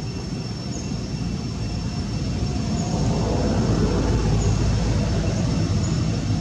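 Low engine rumble of passing motor traffic, swelling louder about three seconds in and staying up.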